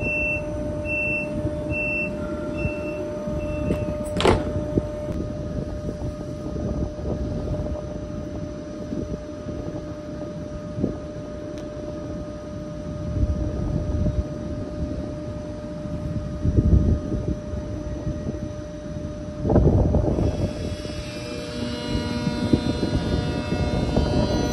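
ICE 3 (class 406) high-speed train at a platform. Door-closing warning beeps sound in a quick even series over the first few seconds, then a door shuts with a thunk about four seconds in. A steady electrical hum follows, with two louder surges of noise later on. Near the end several new whining tones start up from the traction equipment as the train begins to pull away.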